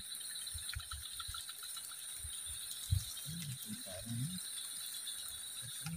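Steady high-pitched insect chorus, with scattered low thumps and knocks from handling close by, the sharpest about three seconds in.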